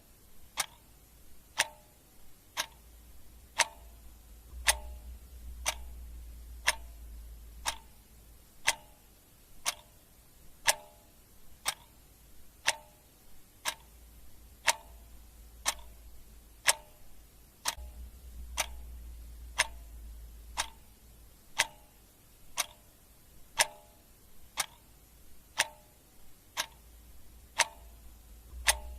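Clock ticking steadily, about one tick a second.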